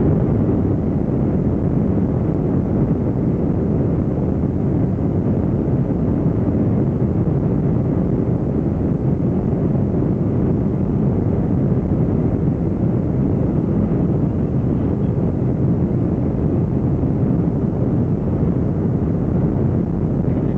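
Airliner's jet engines at takeoff, heard from inside the passenger cabin as a steady, loud, low rumble.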